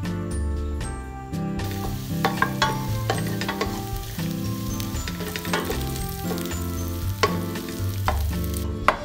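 Minced garlic sizzling in hot oil in a stainless steel pot, starting about a second and a half in and stopping near the end, while a wooden spoon stirs it with sharp clicks against the pot. Soft background music plays throughout.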